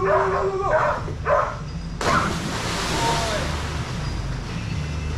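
A dog barking and yipping excitedly, then about two seconds in a sudden big splash as a Belgian Malinois lands in the dock-diving pool, the water noise trailing off over the next second or two.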